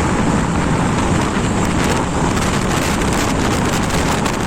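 Steady wind rush buffeting the microphone of a hand-held phone on a moving motorcycle, with the bike's two-stroke engine running beneath it.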